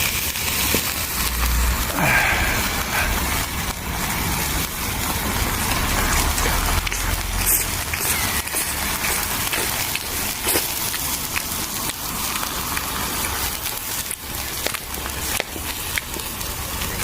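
Swiss chard frying in a pan with a steady sizzle, with occasional short clicks and scrapes from the cooking utensil.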